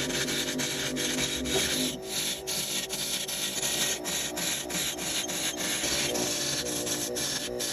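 Meranti wood being worked on a lathe: a tool rubs against the spinning wood in a steady hiss, broken by many short breaks, over the lathe's steady motor hum.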